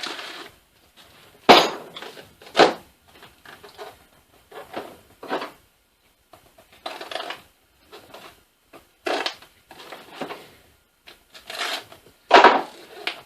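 Cardboard box and packaging being opened and handled: irregular rustles and scrapes, with a few sharp clicks and knocks, the sharpest about one and a half seconds in.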